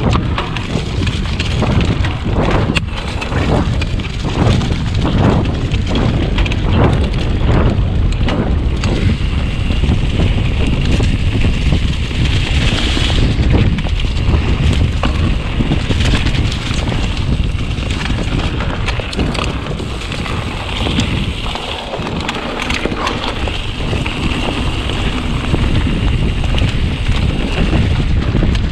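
Wind buffeting the camera microphone as a YT mountain bike runs fast down a dirt trail, with the tyres rumbling over the ground. Short clicks and rattles from the bike, most of them in the first several seconds.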